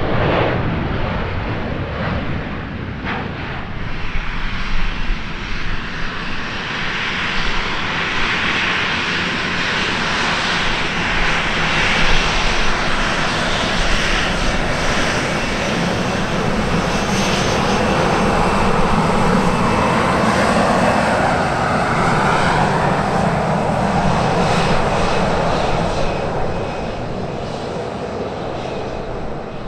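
Airliner's engines roaring as the aircraft goes by, building to a peak over the middle and easing off near the end.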